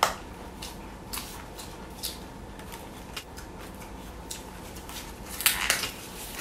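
Plastic-gloved hands pulling the husk sheaths off boiled bamboo shoots: scattered light crackles and rustles, with a louder burst of rustling about five and a half seconds in.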